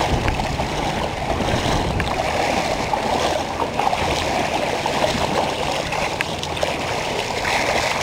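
Steady rush of moving sea water, with a few faint clicks and knocks.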